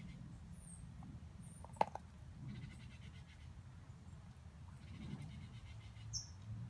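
Siberian husky gnawing and chewing a steak bone, teeth scraping and working at the bone, with one sharp click about two seconds in.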